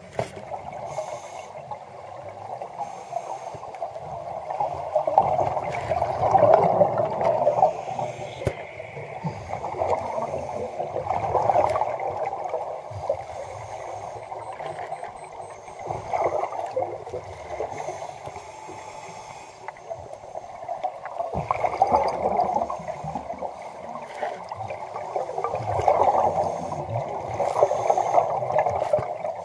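Underwater bubbling and gurgling that swells into a louder surge about every five seconds: a diver's exhaled breath bubbling out, with scattered small clicks.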